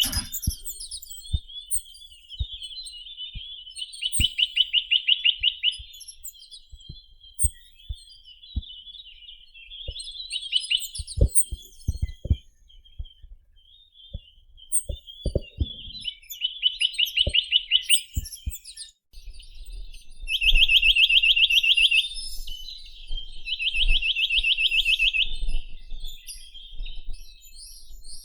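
Chinese nuthatch (Sitta villosa) singing: rapid trills of quickly repeated high notes in bursts of about a second and a half, four times, with softer calls between them. Scattered low knocks sound throughout.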